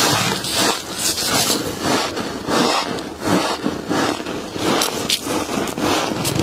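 Frost being scraped and crunched in a series of short rough strokes, roughly one or two a second.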